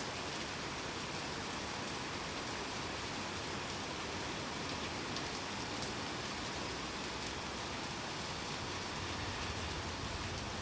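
Rainstorm: steady rain falling, an even hiss with scattered sharp ticks of individual drops.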